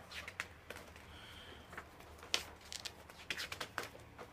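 Paper pages of a model-kit instruction booklet being turned and handled: scattered faint rustles and short crisp flicks.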